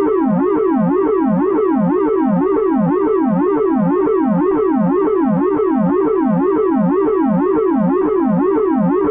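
Synthesized emergency alert tone: a loud siren-like electronic tone warbling up and down in pitch a little over twice a second.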